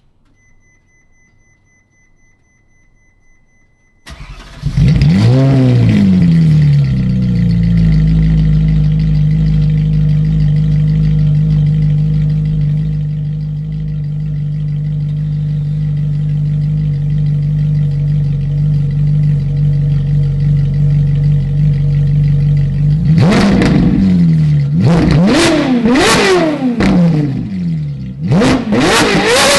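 Ferrari 458 Italia's 4.5-litre V8 starts about four seconds in, flaring up in revs before settling into a steady fast idle. Near the end the throttle is blipped about five times in quick succession, the pitch rising and falling with each rev. Before the start only a faint steady tone is heard.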